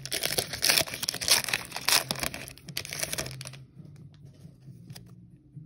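Foil Pokémon trading-card booster pack wrapper being torn open by hand and crinkling. The tearing stops a little past halfway.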